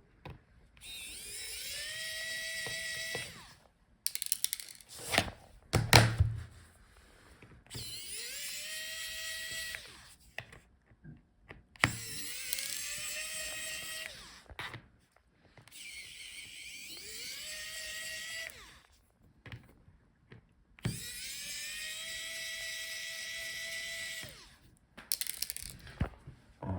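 Small electric screwdriver with a Torx T5 bit backing out the laptop's bottom-case screws. It runs five times for a few seconds each, the whine rising as the motor spins up and then holding steady, with a few sharp knocks and clicks from handling between the runs.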